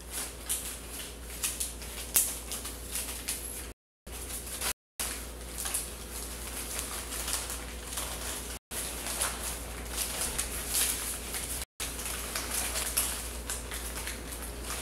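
Paper banknotes crumpled and rustled in the hands, a dense irregular crackling with sharper crinkles now and then. The audio drops out completely for a split second several times.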